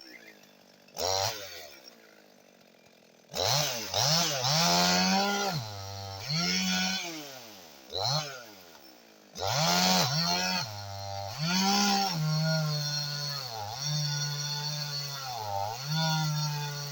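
Two-stroke Husqvarna 55 Rancher chainsaw in stock form, blipped briefly a couple of times, then revved hard. Its pitch repeatedly sags and climbs back, as when the chain loads up in a cut. In the last few seconds it holds near full revs with short dips.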